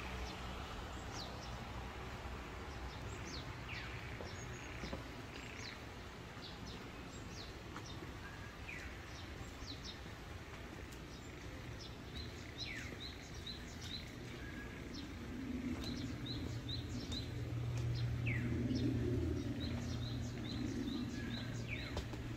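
Small birds chirping: many short, high calls that fall quickly in pitch, with a run of quick repeated notes in the second half. Under them is a low steady hum that grows louder past the middle and eases near the end.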